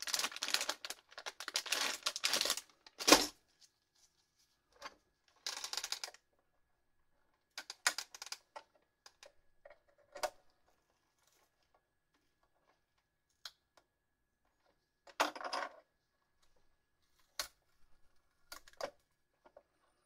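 Clear plastic bag crinkling as gloved hands handle it, ending about three seconds in with a sharp click. Then scattered light clicks and scrapes, one short burst after another, as a metal hook pick pries at the small plastic control-panel cover on the mini fridge's back.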